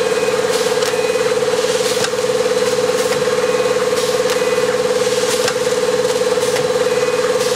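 Four-lane automatic packing machine running: a steady hum with short mechanical clacks repeating through its cycle.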